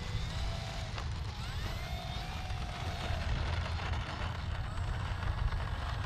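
Wind buffeting the microphone, with the whine of a small electric RC plane's motor and propeller rising and falling in pitch as it taxis.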